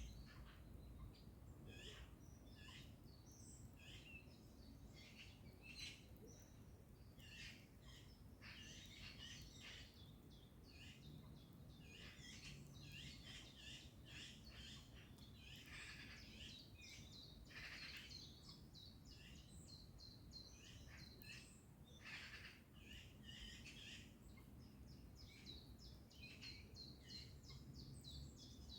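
Morning birdsong: many small birds chirping and singing, with a few harsh, rasping calls of magpies chattering, over a faint low background rumble.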